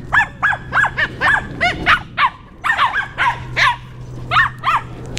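A dog barking in a rapid string of short yapping barks, about three a second, with a short pause a little past two seconds in.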